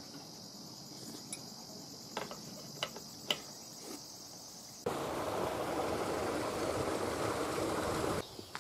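A steady high insect buzz with a few light clicks, then a loud slurp of soba noodles about five seconds in, lasting about three seconds and cutting off suddenly.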